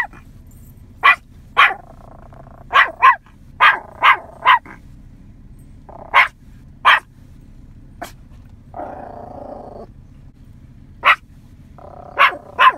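A young Yorkshire terrier barking in short, sharp, high-pitched barks, about a dozen at an uneven pace and often in quick pairs or threes. A longer, lower drawn-out sound of about a second comes about nine seconds in.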